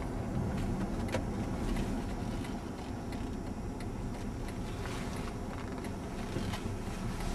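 Steady low rumble of engine and tyres heard from inside a moving car's cabin on a snowy road, with a few faint clicks.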